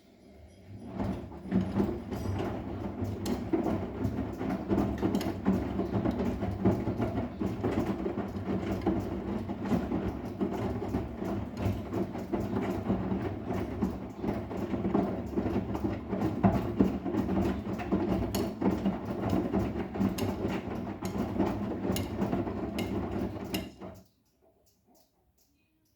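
Arçelik 10121 front-loading washing machine drum turning during a wash, with steady churning and many irregular clicks and knocks as the load tumbles. It cuts off suddenly near the end as the drum stops.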